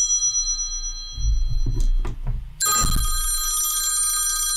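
Phone ringtone ringing with a multi-note electronic trill, starting again a little past halfway after a pause. A few dull low bumps come just before it resumes.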